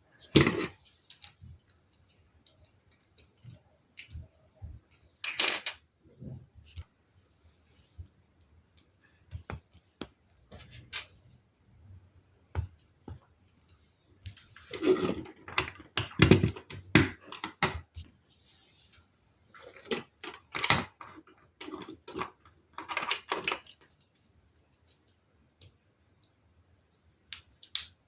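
Plastic LEGO Technic pieces clicking and rattling as they are handled and pressed together, in scattered bursts with short pauses between them.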